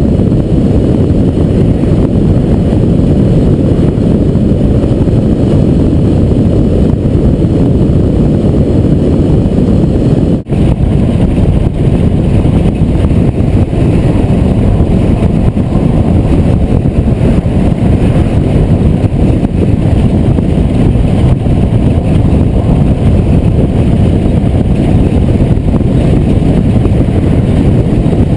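Loud, steady rumble of a car travelling at highway speed: road and wind noise at the microphone, with no other distinct sounds. The noise breaks off for a moment about ten seconds in, where the footage is cut.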